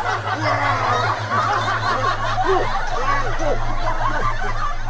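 Several voices at once in a commotion, laughter-like cries and excited shouts overlapping, over a steady low hum.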